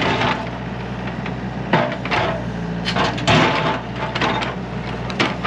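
Excavator engine running steadily, with several harsh clanking bursts over it as the machine works. The sound cuts off suddenly at the end.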